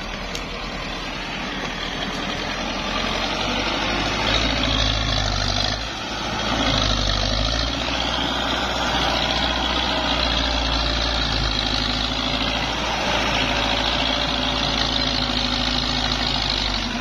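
Belarus tractor's diesel engine running under load while it pulls a tine cultivator through dry ground. It grows louder a few seconds in, dips briefly near six seconds, then runs steadily.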